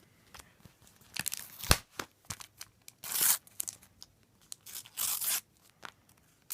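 Panini sticker packet being torn open and its wrapper crinkled: three short rips and rustles with small clicks between.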